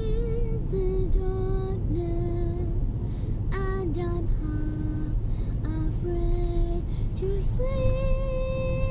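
A high voice singing wordless sustained notes with short breaks between them, ending on a long held note, over the steady low rumble of road noise inside a moving car.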